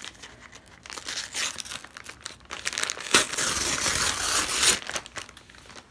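Kraft paper mailer crinkling as it is handled, then about three seconds in its tear-off strip is ripped open in one long tear lasting about a second and a half.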